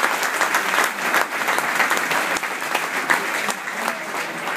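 Crowd applauding, a dense patter of many hands clapping that eases off a little toward the end.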